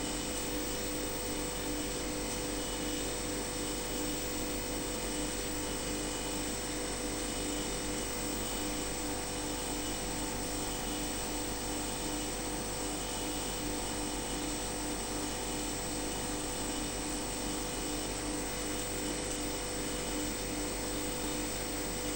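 Steady machine drone with a high, constant whine and a pulsing hum beneath it, unchanging throughout.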